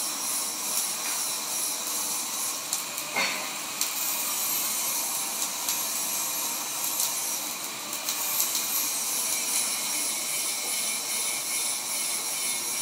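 Electric arc welding: the arc gives a steady hissing crackle.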